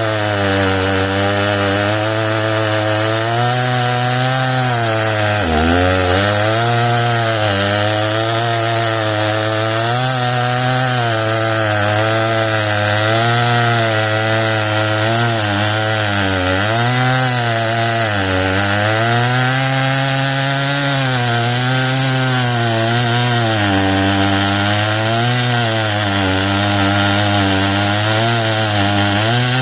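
Husqvarna chainsaw with a 35-inch bar running at high revs while cutting through wood. Its engine pitch sags and recovers as the cut loads it, with brief deeper drops about five and sixteen seconds in.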